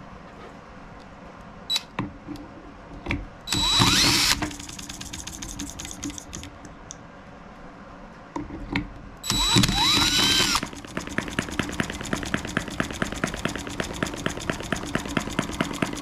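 A cordless drill spins the flywheel of a model M12B four-stroke engine in two short bursts, its motor whine gliding up and down. After the second burst the engine catches and runs on its own at a low idle, firing evenly about three times a second.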